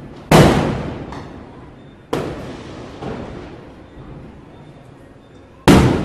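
Diwali firecrackers going off. There is a loud bang just after the start, another about two seconds in, a fainter pop about a second later, and a second loud bang near the end. Each bang is followed by an echo that dies away over about a second.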